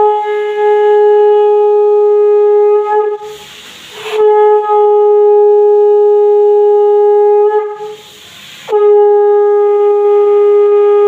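Conch shell (shankha) blown in three long, steady, loud blasts on one pitch, each about three and a half seconds, with short breaths between them; the third blast is still sounding at the end.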